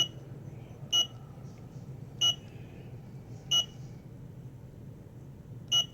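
Hidden-camera alarm clock beeping as its buttons are pressed to set it: four short, high-pitched electronic beeps about a second and a bit apart.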